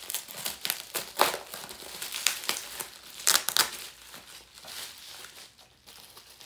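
Plastic bubble-wrap packaging crinkling and crackling as it is handled and cut open by hand. The crackles are loud and dense for the first few seconds, then softer.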